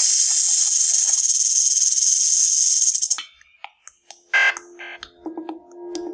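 Rattlesnake shaking its tail rattle: a loud, steady, high buzz, the snake's defensive warning, which cuts off about three seconds in. A few faint clicks and a short burst follow, then soft ringing music tones near the end.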